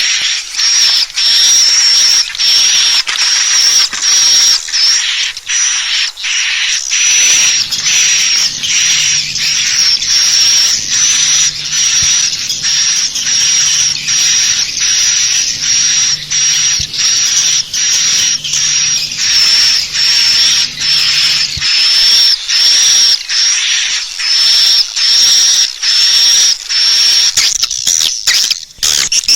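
Swiftlet calling sound used to lure swiftlets into a swiftlet house: high, twittering chirps repeating about twice a second without a break.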